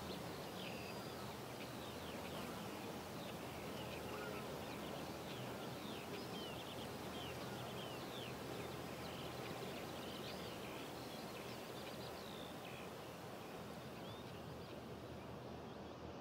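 Small birds chirping, many short calls, over a steady background hiss; the chirps thin out near the end.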